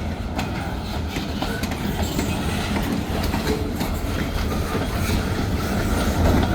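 Short freight train rolling past, its wheels clacking over the rail joints in a run of sharp knocks over a steady low rumble.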